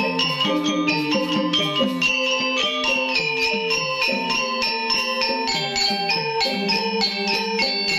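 Balinese gamelan angklung playing a sad funeral piece: bronze-keyed metallophones struck with mallets in a fast, even stream of interlocking notes over ringing lower tones.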